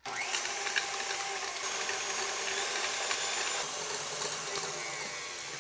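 KitchenAid tilt-head stand mixer running steadily, its wire whisk beating eggs and golden monk fruit sweetener in a steel bowl until the mixture turns pale and thick.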